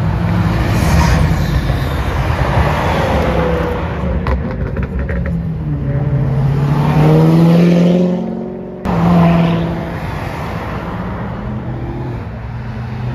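Cars accelerating hard past one after another with loud engine noise: a blue early-1970s Chevrolet Nova, then a yellow C6 Corvette whose V8 climbs in pitch as it revs up over about two seconds. Near nine seconds the sound breaks off abruptly, then another engine picks up.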